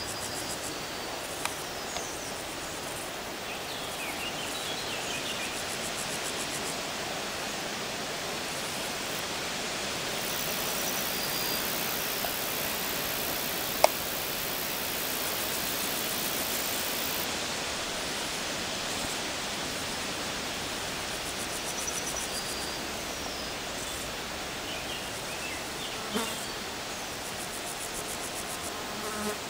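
Steady outdoor background hiss with a few faint, short chirps scattered through it and a single sharp click about halfway through.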